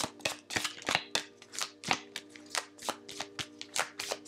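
Deck of tarot cards being shuffled in the hands: quick, crisp card slaps, about four a second.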